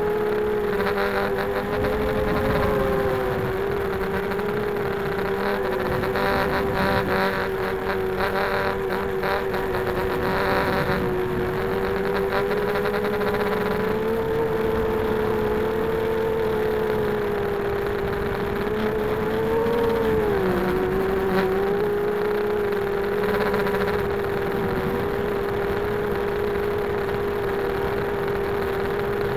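Four RCX H1806 2400kv brushless motors of a 250-size FPV quadcopter spinning Gemfan 5x3 props in flight: a steady, high motor-and-prop whine over a rushing noise, heard from on board. The pitch wavers slightly with throttle and dips then recovers about twenty seconds in.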